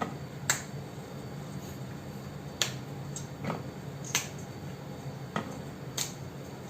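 Fresh green beans being snapped into pieces by hand: six sharp, crisp snaps at uneven intervals, roughly a second apart.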